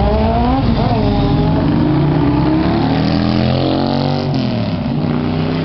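Several motorcycle engines revving and riding past at once, their overlapping tones rising in pitch, with the pitch dropping about four seconds in.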